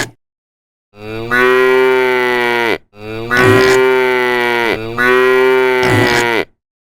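A cow mooing three times, each call long and loud and dropping in pitch at its end.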